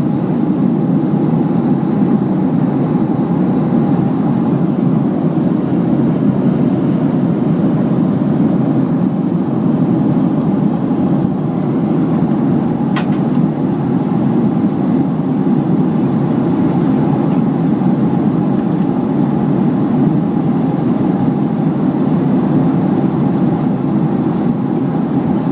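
Steady cabin noise of a Boeing 737 airliner in flight: an even drone of engines and airflow with a faint steady hum in it. A single short click comes about halfway through.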